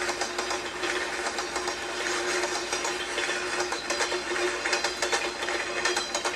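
Train clickety-clack: rapid, continuous mechanical clicking and clattering, with a steady hum underneath.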